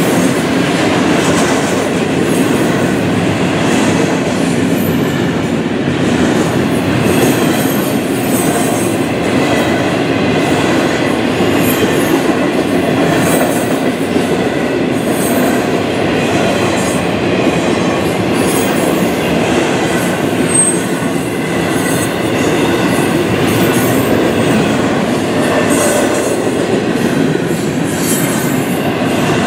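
Freight train rolling steadily past at close range: a continuous rumble of steel wheels on rail, with wheel clatter and a little wheel squeal.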